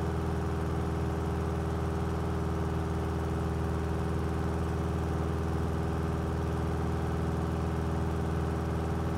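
Cessna 172B's six-cylinder Continental engine running steadily at climb power, heard inside the cockpit. It is running smoothly on newly replaced cylinders during break-in.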